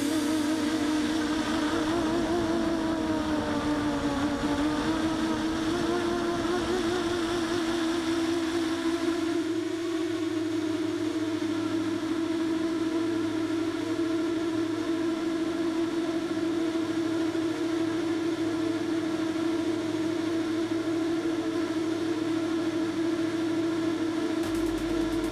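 Motors and propellers of a 7-inch FPV quadcopter droning in flight, heard through the onboard camera's microphone. The pitch wavers up and down for the first several seconds, then settles into one steady note, the quad holding a constant throttle as it flies back on return-to-home.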